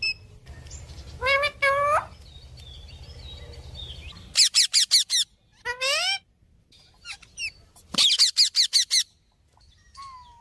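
Pet parrots calling: two rising squawks about a second in, then quick runs of high, sweeping chirps around the middle and again near the end. A low hum sits under the first four seconds.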